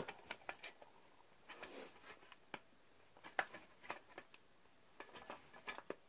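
Scattered light clicks and taps of hands handling a plastic smoke detector, with a faint rustle now and then.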